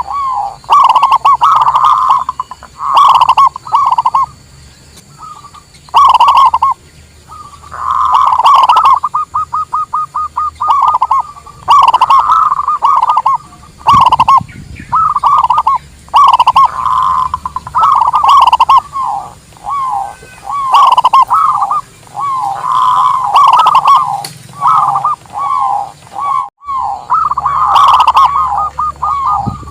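Zebra doves (local perkutut) cooing: a steady series of short, rolling coo phrases, one after another, with a fast run of rapid notes about nine seconds in.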